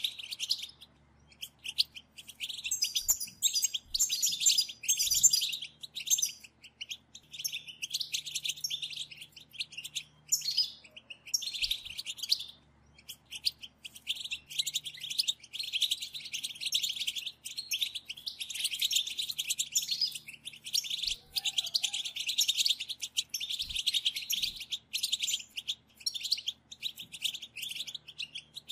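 Several European goldfinches giving rapid, overlapping twittering calls, the group 'batbata' chatter, with only brief lulls.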